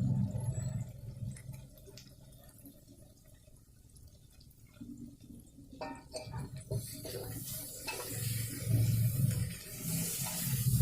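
Running water, starting about six seconds in with a few knocks and growing into a steady hiss.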